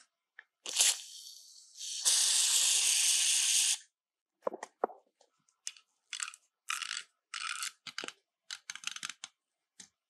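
Aerosol spray can hissing through its red straw nozzle onto the rusty flint-tube screw: a short spurt, then an even spray of nearly two seconds. A screwdriver then scrapes in the screw's slot in a string of short bursts as it turns the rusty screw.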